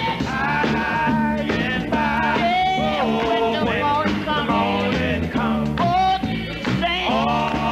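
Gospel quartet singing in harmony, with a lead voice bending and holding notes over instrumental backing with a steady bass line.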